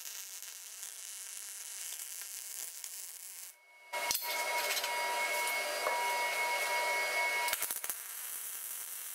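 Wire-feed (MIG) welder arc crackling and hissing as two pieces of steel angle iron are welded together. It breaks off briefly about three and a half seconds in, then picks up again louder, with a faint steady whine underneath.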